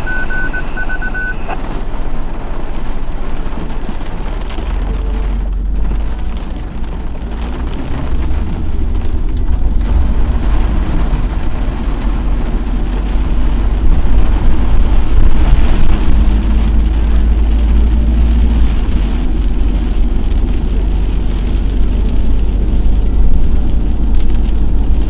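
Car driving on a wet road, heard from inside the cabin: a loud, steady low rumble of road and engine noise that grows louder about halfway through. A rapid series of high beeps sounds in the first second and a half.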